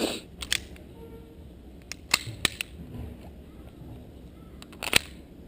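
A few sharp clicks and knocks from a gas blowback airsoft pistol and its magazines being handled and readied, the loudest about five seconds in.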